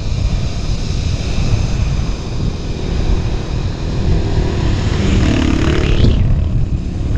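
Honda PCX scooter's single-cylinder engine running at road speed, with wind buffeting the microphone, and a brief rising whine about six seconds in.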